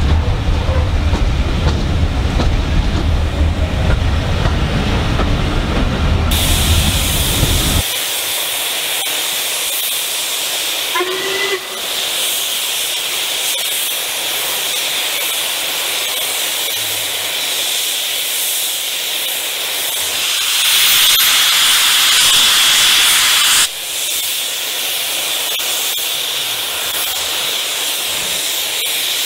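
Low rumble of a moving train heard from the carriage, then a steady loud hiss of steam from LMS Jubilee 4-6-0 No. 45596 Bahamas, venting through its open cylinder drain cocks. The hiss swells louder for a few seconds about two-thirds of the way through.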